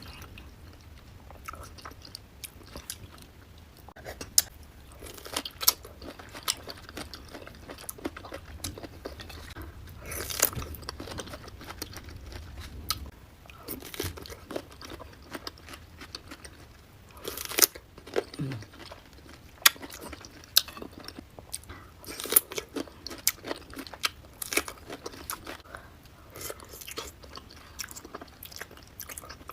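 Close-miked eating of a seafood boil: wet chewing and biting with sharp, irregular crunches and clicks, a few of them much louder than the rest.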